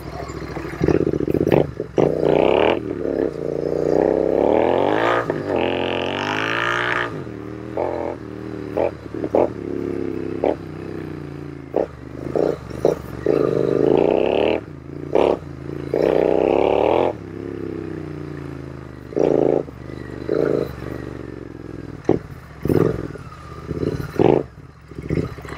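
Royal Enfield Continental GT 650's parallel-twin engine revving up and dropping back over and over as the bike is ridden along a rough dirt trail. Short knocks and rattles from the bumps cut in throughout.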